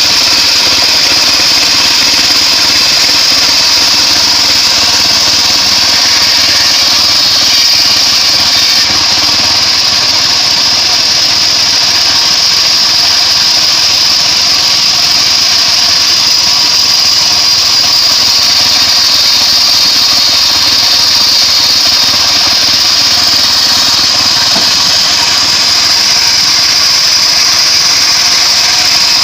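Homemade bandsaw sawmill running steadily, sawing acacia wood: a loud, even machine noise with a strong high hiss.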